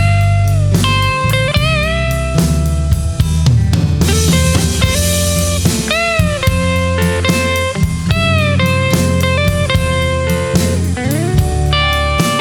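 Instrumental break of a song: a lead guitar plays a melody of held notes that bend and waver in pitch, over bass and a drum kit, with a cymbal crash about four seconds in.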